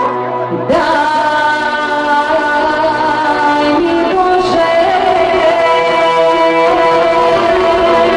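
Live Bulgarian folk band music: a woman singing into a microphone over saxophone, clarinet and accordion, with long held notes. The sound briefly thins out just at the start, as at an edit.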